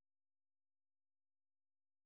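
Silence: the audio track is empty, with no sound at all.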